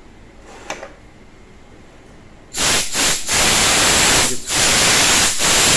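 A loud hiss of a pressurised jet of air or spray, starting about two and a half seconds in and coming in four bursts with short breaks between them.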